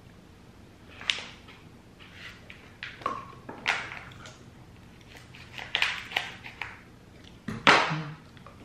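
Quiet handling sounds: a handful of short clicks and crinkles as a plastic Slush Puppie pouch is picked up and opened, the loudest near the end.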